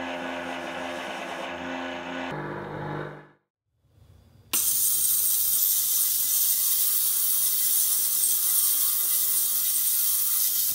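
A rotary polishing tool spins a buffing wheel with a steady hum, then winds down and stops about two seconds in. After a short silence, an ultrasonic cleaner switches on abruptly with a loud, steady, high-pitched hiss.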